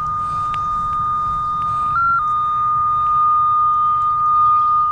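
Cable locator receiver sounding its steady single-pitch tracing tone while it follows a toned coax cable. The pitch steps up briefly about two seconds in, a change in the signal response picked up from the cable.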